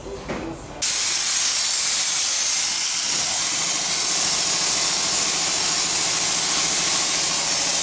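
Pressure washer lance spraying the underside of a car: a loud, steady hiss that starts suddenly about a second in and stops near the end, with a low hum underneath from about three seconds in.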